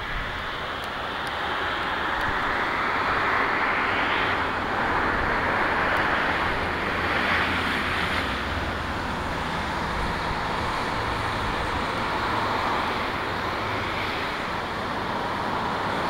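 Steady traffic noise from a busy multi-lane road: a continuous rush of car tyres and engines that swells as vehicles pass, loudest about four and seven seconds in.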